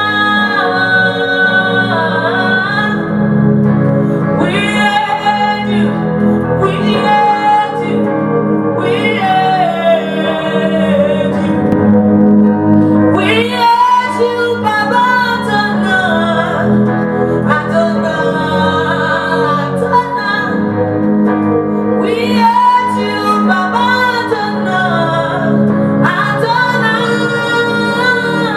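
Worship song: a woman singing sustained, wavering lines over steady instrumental accompaniment.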